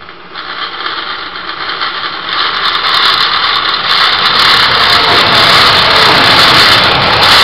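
Taiwan Railways passenger train passing close by, its running noise swelling quickly as it approaches and staying loud as the cars go past.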